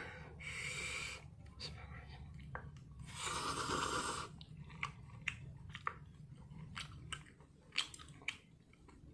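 A person slurping in a mouthful of instant ramen noodles about three seconds in, then chewing with a run of short wet smacking clicks.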